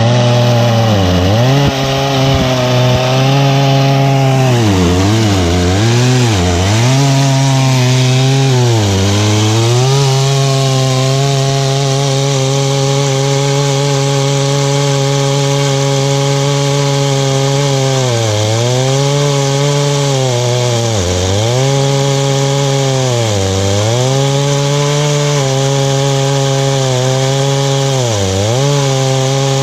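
Chinese-clone Stihl MS660 two-stroke chainsaw running at full throttle in a chainsaw mill, ripping a slab lengthwise through dense red gum eucalyptus. Its pitch dips briefly several times as the engine bogs under the load of the cut.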